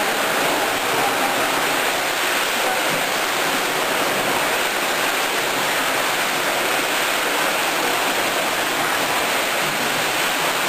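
A steady rushing noise with no breaks or changes.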